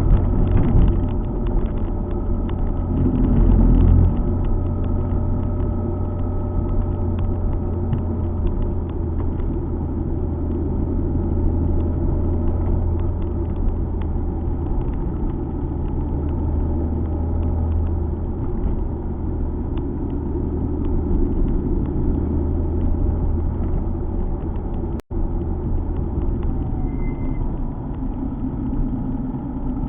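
Alfa Romeo 147 GTA's 3.2-litre V6 engine running steadily under way, with tyre and road noise, a low even rumble. The sound drops out for an instant about five seconds before the end.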